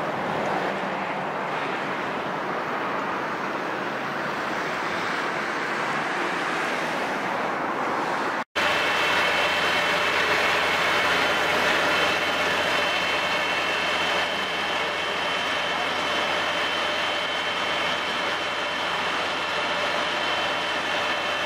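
Steady vehicle engine noise. After a sudden cut about eight seconds in, a large trailer-mounted engine-driven flood pump runs steadily, with a constant hum and a high whine over its engine noise.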